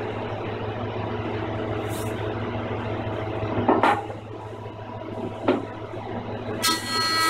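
A Rikon 25-210H jointer/planer's motor and helical cutterhead running without a load, a steady hum. A wooden board knocks twice as it is set on edge against the fence. Near the end the cutterhead starts cutting along the board's edge, and a louder, higher-pitched cutting sound sets in.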